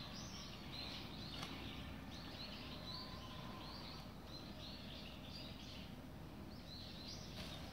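Small birds chirping faintly, many short high calls scattered throughout, over steady low background noise.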